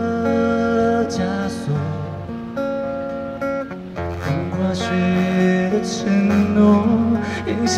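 Acoustic guitars playing an instrumental passage of a song, strummed and picked chords changing every second or two.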